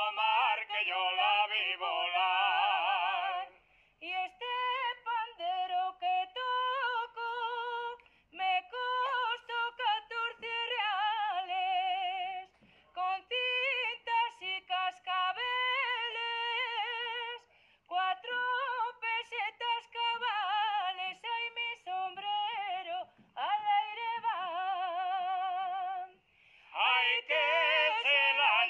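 Background music: a woman singing a song in long phrases with strong vibrato, broken by short pauses for breath.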